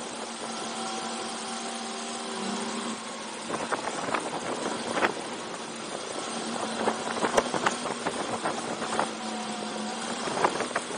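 Go-kart engine running steadily close to the microphone, with clusters of sharp knocks and rattles about four seconds in and again from about seven seconds in.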